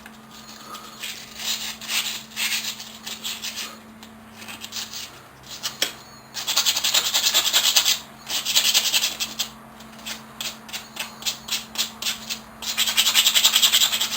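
Coarse sandpaper rubbed by hand over the rusty steel of old pliers to take the rust off. Short separate strokes come first, then faster, louder runs of rapid scrubbing about halfway through and again near the end.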